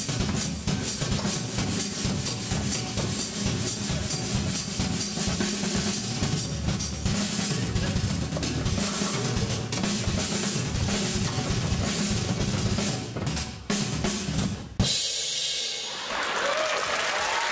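Drum kit played fast with bass drum, snare and cymbals in a dense run of beats, stopping on one loud final hit about fifteen seconds in. About a second later, applause starts.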